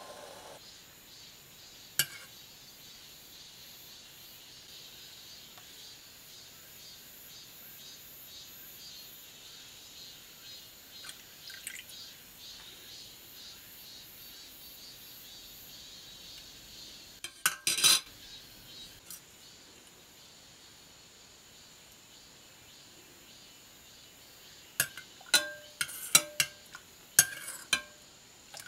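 Metal ladle clinking and scraping against a stainless steel pot while stirring a simmering liquid, over a faint steady simmering hiss. One sharp clink early, a louder clatter a little past halfway, then a quick run of ringing clinks near the end.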